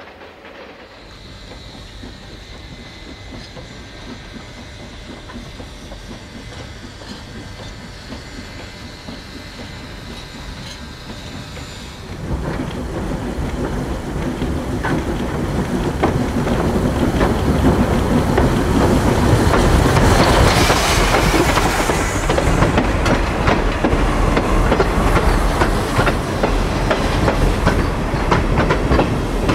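Railroad cars rolling past close by on a trestle, wheels clicking over the rail joints. Quieter for the first twelve seconds or so, then suddenly much louder, and it stays loud.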